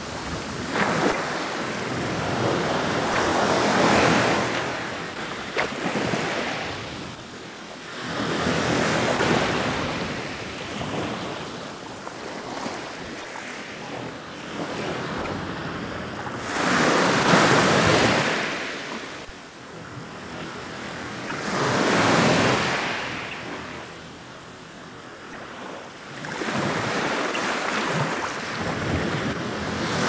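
Ocean waves washing ashore in repeated surges, each swell of surf rising and falling away every few seconds.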